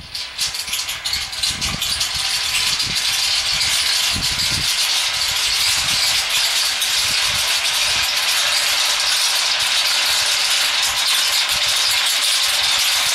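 A marble rolling down a long metal musical marble run. There are a few knocks in the first seconds, then a steady rattling roll along the rails that grows a little louder.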